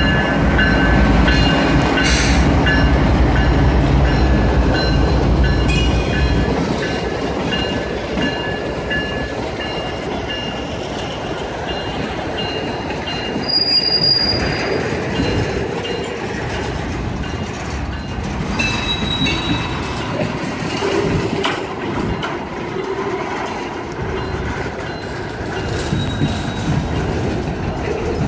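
CSX freight train rolling past close by. The diesel locomotives' engines give a heavy rumble for the first several seconds, then tank cars and a covered hopper rattle and clatter past on the rails, with a few brief high-pitched wheel squeals.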